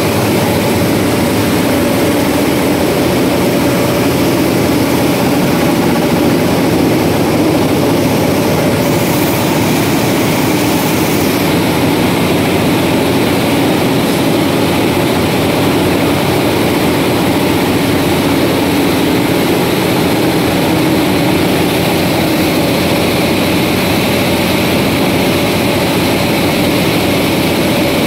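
Loud, steady machinery noise of cotton roller gins running in a ginning mill: a dense, even mechanical din with a faint steady hum, unchanging throughout.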